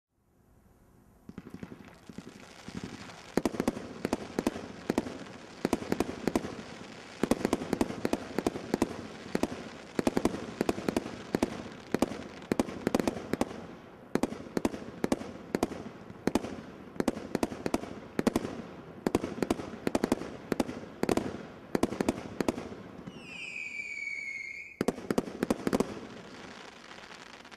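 Brothers Pyrotechnics 'Rip' 50-shot barrage cake firing: rapid volleys of sharp shots and bursts in quick clusters, one after another. Near the end a whistling comet gives one slightly falling whistle, followed by a last few shots.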